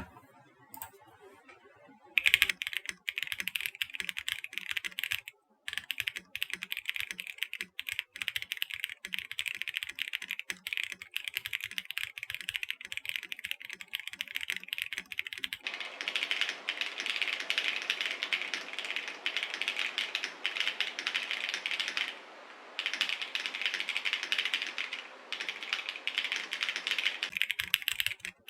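Typing on a plastic-cased GAS67 mechanical keyboard with lubed KTT Strawberry linear switches and XMI keycaps, built for a clacky sound. Separate keystrokes begin about two seconds in, then become fast continuous typing about halfway through, with a brief pause, and stop near the end.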